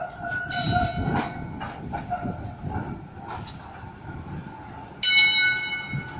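Melbourne A1-class tram pulling into a stop, its motor and wheels running on the rails. About five seconds in comes a sudden loud, high-pitched tone that fades over about a second.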